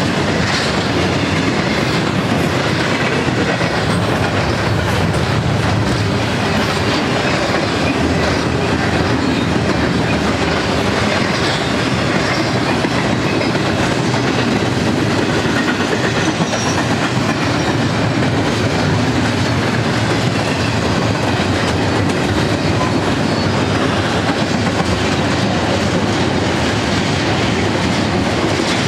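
Double-stack intermodal freight cars rolling past: steady noise of steel wheels running on the rails, without a break.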